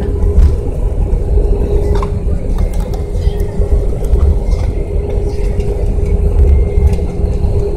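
Cabin noise of an Airbus A319 rolling out on the runway after landing: a loud, steady low rumble from the wheels and engines, with a steady hum over it.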